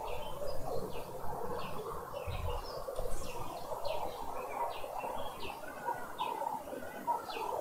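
Birds calling at dawn: a short, sharp chirp repeats about every three-quarters of a second over a busy mix of lower bird calls.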